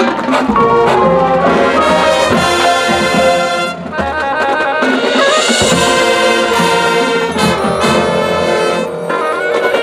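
High school marching band playing its field show, the brass section loud and full over the band's percussion, with a short lull about four seconds in.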